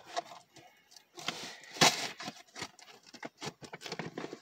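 Packaging being handled and opened: an irregular run of clicks, scrapes and rustles, with a louder rustle about two seconds in.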